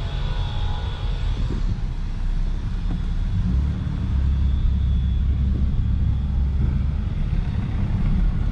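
Steady low rumble of a motor vehicle running, louder for a couple of seconds in the middle, with a faint thin high tone over it in the first half.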